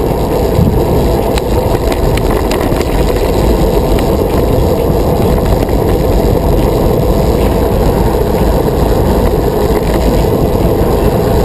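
Wind buffeting the microphone and tyre noise while riding a touring bicycle along the road: a loud, steady low rushing rumble with a few faint clicks.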